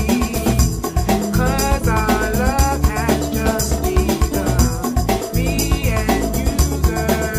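Background music with a steady drum beat and a wavering melody line over it.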